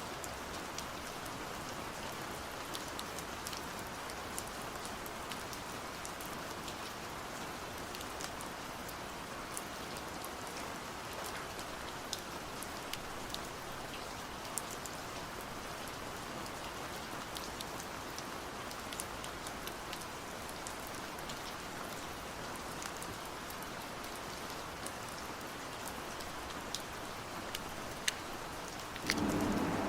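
Steady rain falling, with individual drops ticking sharply through it. A brief, louder low swell comes just before the end.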